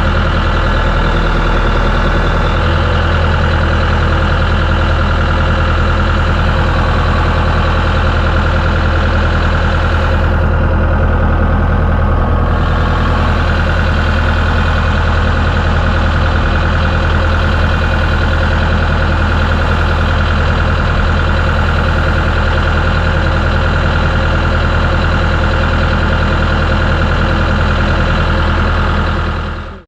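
An engine running steadily at constant speed, with a steady whine over its low drone; it cuts off suddenly at the very end.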